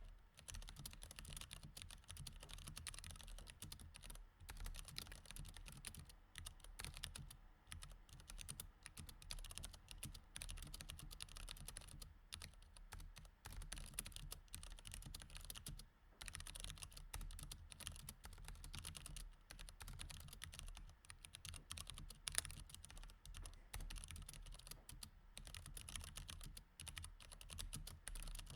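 Steady, fast typing on a mechanical keyboard with Cherry MX Red switches: a dense run of keystrokes with short pauses every few seconds, and one louder keystroke a little past the middle.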